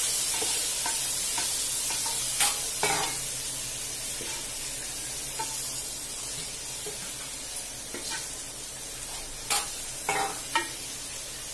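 Onion, tomato and spice masala frying in oil in a non-stick pot, sizzling steadily while a wooden spatula stirs and scrapes through it, the sizzle easing a little over time. A few sharp knocks of the spatula against the pot: two about two and a half seconds in and three more near the end. The masala is being fried until the oil separates.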